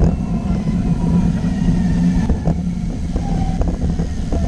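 Steady low rumble of wind and road noise on a bicycle-mounted camera while riding at speed along a road, with faint traffic engine sound from vehicles ahead.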